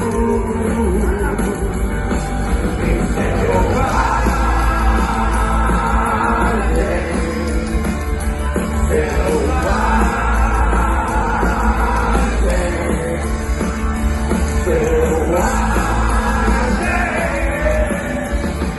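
Live rock band playing loud, with drums, bass and electric guitars under singing; a long held vocal or guitar line comes in three times.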